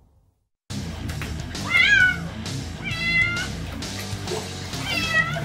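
A kitten meowing three times in high-pitched calls, about a second and a half apart, while being held in bath water, over background music. The sound starts after a brief silence.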